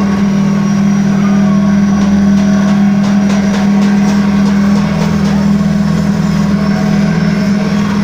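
D22 vertical pellet press running, its drive motor giving a loud, steady hum with one strong constant tone.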